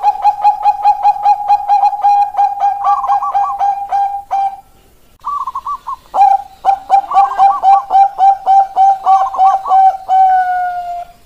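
Bangkok-type zebra dove (perkutut) song: fast runs of short, clipped coos, about six or seven a second, with warbled higher notes woven in. The run breaks off a little over four seconds in, starts again, and ends near the end on a longer, slightly falling note.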